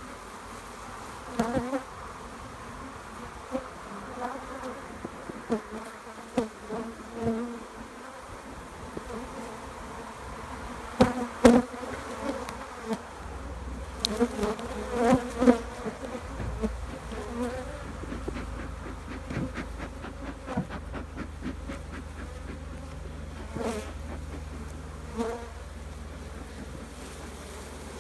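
Swarm of honeybees buzzing steadily around an opened hive, with scattered sharp knocks, the loudest about eleven seconds in.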